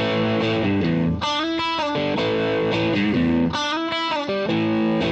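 Electric guitar playing a repeating riff as the instrumental intro of a rock song. The phrase comes round about every two and a half seconds.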